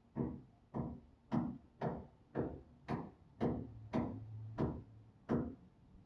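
Hammer blows, ten in a steady rhythm of about two a second, each strike sharp with a short ringing decay. A low steady hum sounds under the middle strikes.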